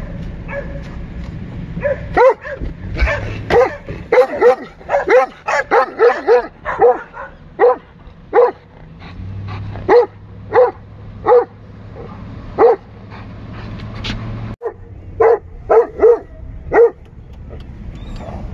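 Doberman Pinscher barking loudly out of a moving car's window at dogs on the road. First comes a fast run of barks, then single barks about every 0.7 s, a short pause, and four quick barks near the end, all over the low hum of the car.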